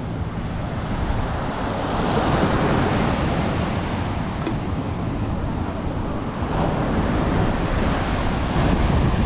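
Ocean surf breaking and washing up the beach in a steady rush that swells louder about two seconds in and again near the end, with wind rumbling on the microphone.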